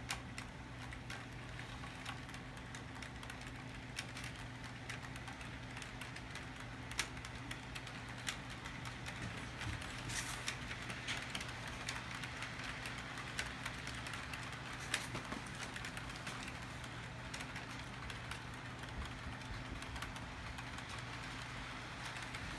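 HO scale model train running around the layout track: a faint steady electric hum with a light rolling rattle and scattered clicks of the wheels over the track joints.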